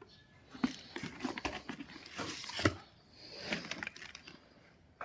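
Packaging and items being handled: irregular rustling with light knocks, and one sharper knock a little past halfway.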